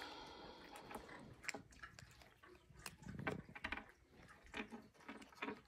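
A Yorkshire terrier sniffing and nosing at a hard dog treat on a wooden surface: faint, irregular snuffles and small mouth clicks.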